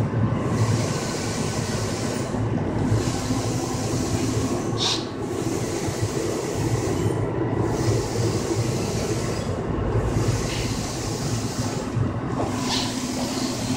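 Infiniti 3360EC Plus large-format digital printer running as it prints, a steady mechanical hum and rumble. The higher sound drops out briefly at a regular pace, about every two and a half seconds, in step with the print carriage's passes.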